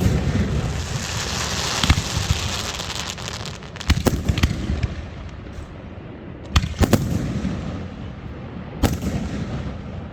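Fireworks going off: a loud bang at the start followed by a couple of seconds of dense crackling, then further sharp bangs every two to three seconds, some in quick pairs.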